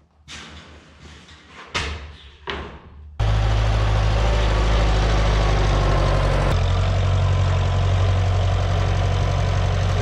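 A few knocks and clatters of long wooden boards being handled and stacked. About three seconds in, a farm tractor's engine starts running steadily and loudly as it is driven.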